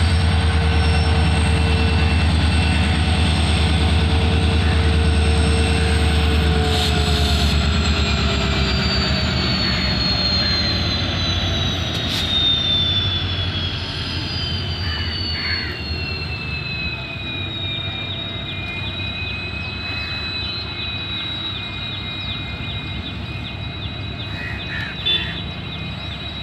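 WDG4 diesel locomotive's 16-cylinder EMD 710 two-stroke engine running as the locomotive moves along the track. A deep rumble fades after about seven seconds, while a high whine slowly falls in pitch and then holds steady.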